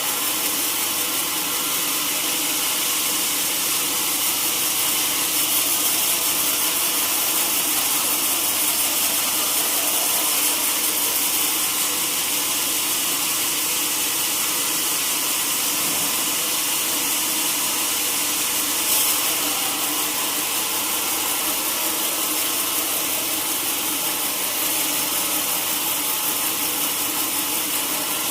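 Sawmill saw running steadily on teak wood, a continuous even hiss of machine and blade with no breaks. A single brief knock about two-thirds of the way through.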